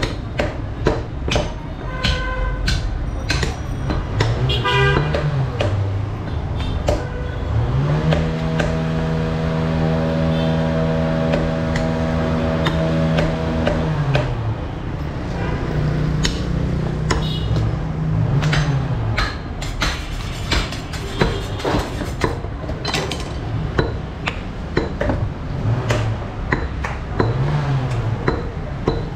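A butcher's cleaver repeatedly chopping beef on a wooden log block, with many sharp chops throughout. Behind it, a motor vehicle hums, rising in pitch, holding steady for about six seconds from about eight seconds in, then falling away, with shorter rises and falls of the same hum later.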